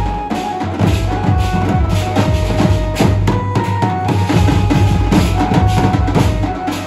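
A band of large stick-beaten bass drums playing a fast, dense rhythm together, over a tune of long held notes.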